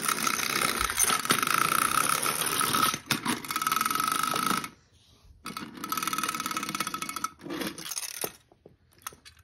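Wind-up toy robot cart running across a hardwood floor: its clockwork motor whirs steadily and the toy clatters and rattles as it rolls. Halfway through it cuts out for about a second and starts again, then stops near the end, leaving a few light clicks as it is handled.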